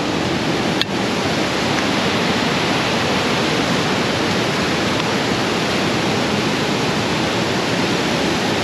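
Rushing white water of a mountain stream cascading over rocks close by: a loud, steady, even rush. A single click comes about a second in.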